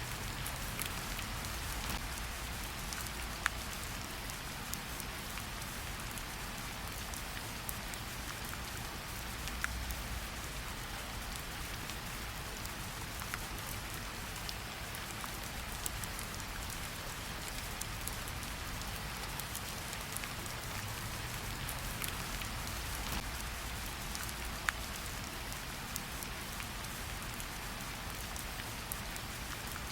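Steady rain falling outside: an even hiss of rain with scattered sharp drop ticks over a soft low rumble.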